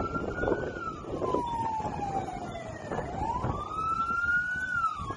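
Emergency vehicle siren wailing, its pitch slowly rising and falling, low point about three seconds in, over a low background rumble.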